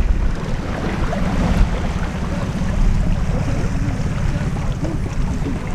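Small motorboat's outboard engine running with a fast, steady low pulsing, over splashing water and wind on the microphone.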